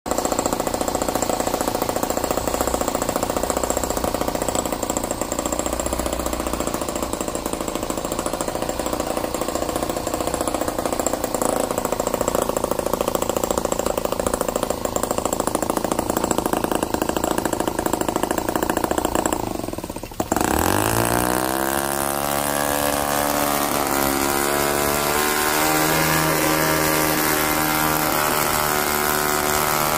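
RETROL MUSA 2.2cc single-cylinder gasoline model engine running steadily. About two-thirds through, the sound dips briefly, then the engine picks up again with a rising pitch and runs on steadily.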